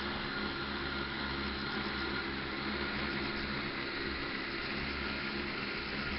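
A 10-litre agricultural spraying drone's electric motors and propellers running in flight: a steady hum with several held tones over an even rush of air.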